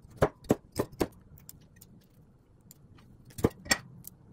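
Kitchen knife chopping broccoli on a bamboo cutting board, the blade knocking against the wood: four quick chops in the first second, then two more sharp knocks about three and a half seconds in.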